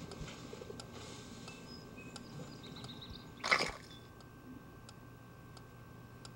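Faint steady hum with soft, regular ticks, and one short, loud burst of noise about three and a half seconds in.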